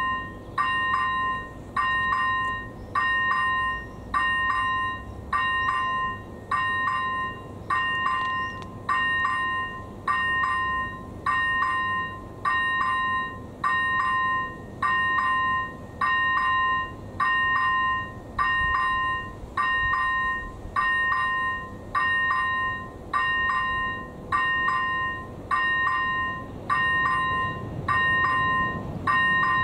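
AŽD ZV01 electronic level-crossing bell ringing steadily, a clear ding about once a second. It is the crossing's warning, sounding while the red lights flash for an approaching train.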